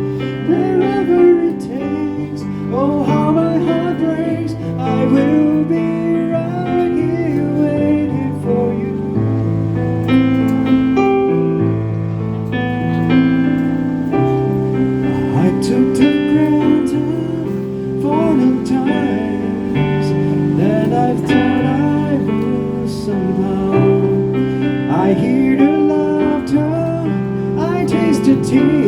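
Busking singer performing a song live over steady instrumental accompaniment, the voice carrying a gliding melody above changing chords.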